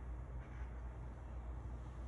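Steady low hum with a faint hiss over it: workshop room tone, with a brief soft rustle about half a second in.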